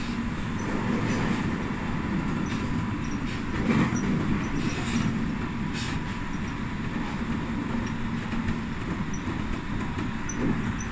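Electric train running along the track, heard from inside the front car: steady running noise of wheels on rail with a faint steady hum and a few sharp clacks.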